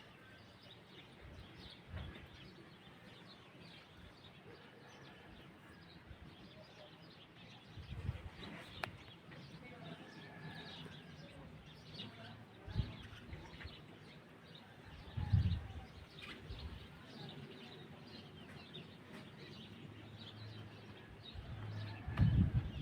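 Small birds chirping and calling, quietly, with a few short low thumps scattered through.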